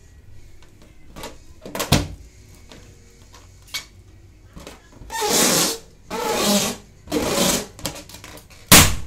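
Hands rubbing and squeezing an inflated latex balloon: a few sharp squeaks and crackles about two seconds in, then three long rasping rubs on the latex, each about a second. A single sharp slap on the balloon comes near the end and is the loudest sound.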